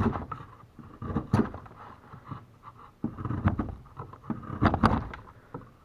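Freshly sharpened wood chisel pushed by hand into a piece of wood, paring off shavings in a series of short, irregular scrapes and cracks.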